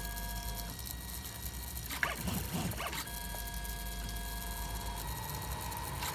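3D printer's stepper motors whining as the print head and extruder move while it prints, several steady tones that stop and start and change pitch every second or two as the moves change.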